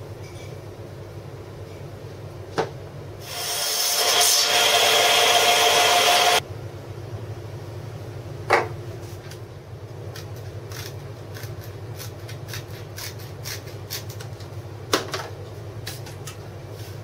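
A power tool working wood runs loudly for about three seconds, starting and stopping abruptly, over a steady low hum. Single sharp wooden knocks come before and after it, and light ticking and rustling of handling follow later.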